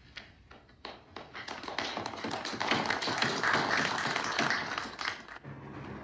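A small group of men applauding. A few scattered claps at first build to steady applause about a second in, which stops near the end.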